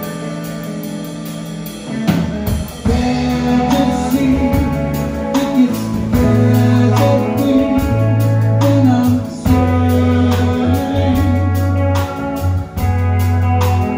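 Live band music: keyboards, drum kit, bass and a pedal steel guitar, with a voice singing. The band gets fuller and louder about two seconds in.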